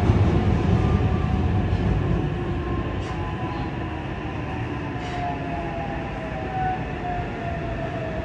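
Yokohama Municipal Subway 3000S train heard from inside the car while running: its Mitsubishi IGBT-VVVF inverter traction motors whine in several tones that slowly fall in pitch, over wheel and rail rumble that is heavier for the first two seconds.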